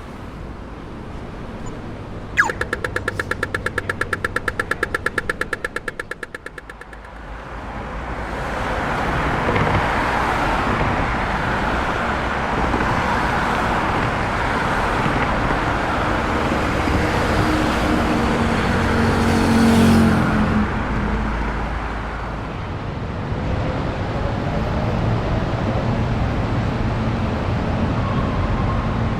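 City street traffic: road vehicles passing and pulling away, one engine rising in pitch as it accelerates before the noise eases a little. Early on, a sudden fast, even electronic ticking runs for about four seconds and then stops.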